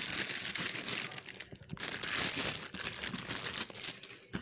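Plastic crinkling and rustling as baby bibs are handled and pulled about, in irregular bursts.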